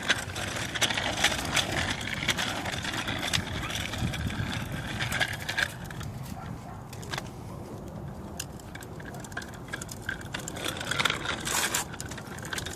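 Bicycle rolling along pavement, with tyre noise and many small rattles and clicks from the bike, busier in the first half.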